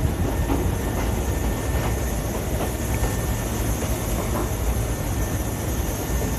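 Tobu 350 series electric train rolling slowly during a shunting move: a steady low rumble with irregular wheel clacks over rail joints and points.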